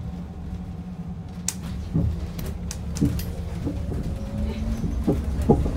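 Interior of a Yutong E10 electric bus on the move: a steady low road rumble with a faint motor whine that rises slowly in the second half, as it does when the bus pulls away. A click and several short creaks and knocks from the bus interior sound over it.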